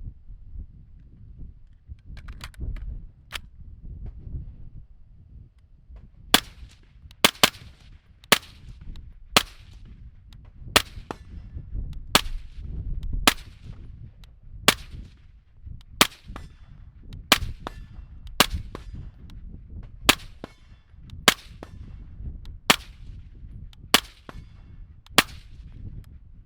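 Suppressed rifle fired through a Rex Silentium MG7 suppressor: a steady string of about seventeen single shots, roughly one a second, each a sharp crack with a short tail, starting about six seconds in.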